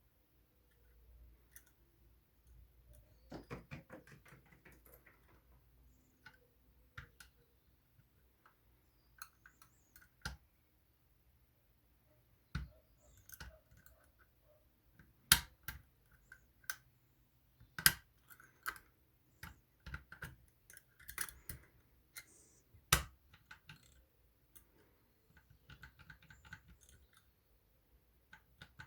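Small metal clicks and light scraping of picking tools working the levers inside a Union 3G110 five-lever lock, irregular and intermittent, with a few sharper clicks among them as levers are lifted and set.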